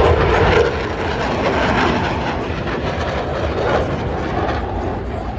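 Jet aircraft flying past: a loud, even rushing engine noise that slowly fades.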